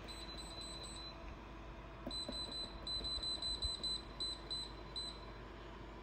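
Short high electronic beeps from a ToLife TZM2 space heater's touch control panel as its timer buttons are pressed. A few come in the first second, then a quick run of about three to four beeps a second from about two seconds in to about five seconds in, as the timer hours are stepped.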